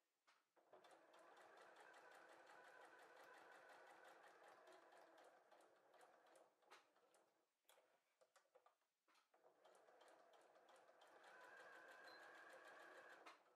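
Electric sewing machine stitching around the outline of a fabric holly leaf, in two steady runs of rapid, even stitching. In the middle it stops for a few seconds, with a few scattered clicks, as the fabric is turned at a leaf point. Faint overall.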